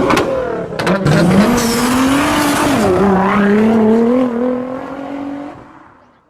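Car engine revving at high speed, its pitch climbing slowly with a brief dip about three seconds in, then fading out near the end.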